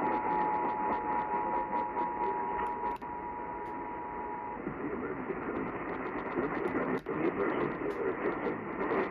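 Emergency Alert System two-tone attention signal (853 and 960 Hz) heard through a radio receiver. It cuts off about three to four and a half seconds in, leaving hissing, crackling radio static.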